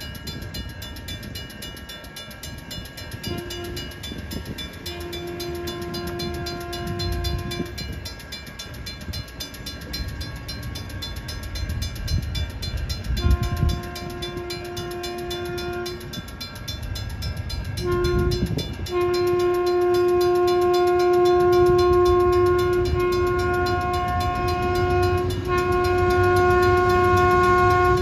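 NCTD Sprinter railcar, a Siemens Desiro diesel multiple unit, sounding its horn in the grade-crossing pattern as it approaches: long, long, short, then a long blast held for several seconds. The train's low running rumble grows louder as it nears.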